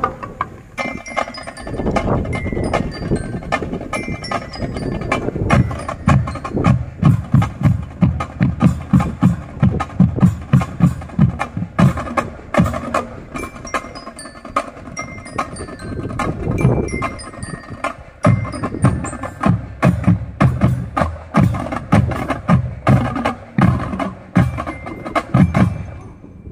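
Marching drum band playing a percussion piece: rapid snare and bass drum strokes under a bell lyra (glockenspiel) melody, breaking off abruptly at the end.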